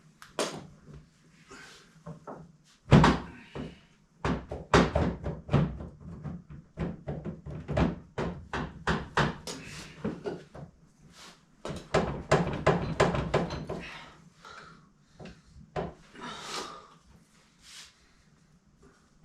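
Repeated metal knocks and clunks from working the UTV's front drive shaft onto its splined shaft, which keeps refusing to slide on: one heavy thunk about three seconds in, then a fast run of several knocks a second that thins out to scattered ones near the end.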